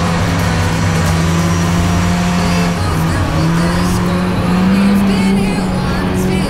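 Snowmobile engine running under way. Its pitch dips about three seconds in, then rises as it speeds up and settles again near the end.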